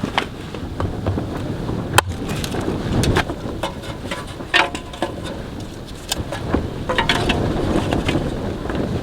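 Steady low rumble of blizzard wind, with scattered sharp clicks and knocks of things being handled, the loudest a crack about two seconds in.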